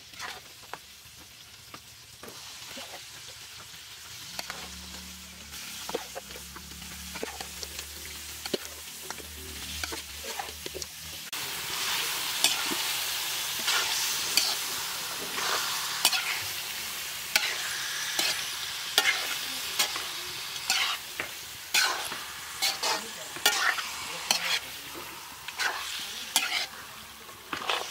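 Pork pieces and onions frying in hot oil in a metal wok, sizzling, while a perforated metal spatula stirs them, scraping and knocking against the pan over and over. The sizzling gets much louder about halfway through, and the scrapes come thick and fast from then on.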